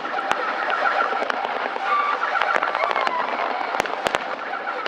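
Aerial fireworks going off: many sharp cracks and bangs in quick succession over a steady background din.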